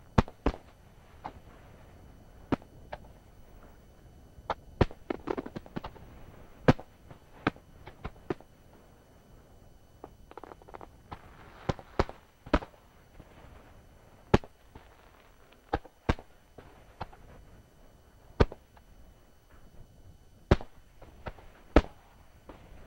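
Aerial firework shells bursting one after another, sharp booms at irregular gaps of about a second or two, with quieter crackling between some of them.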